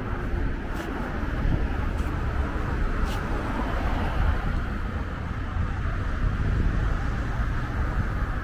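Steady low rumble of wind buffeting the microphone, mixed with road traffic noise.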